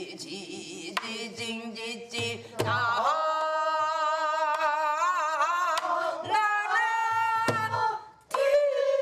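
A woman singing pansori, holding long notes with a wide, wavering vibrato, with a few low thumps beneath the voice and a short pause near the end.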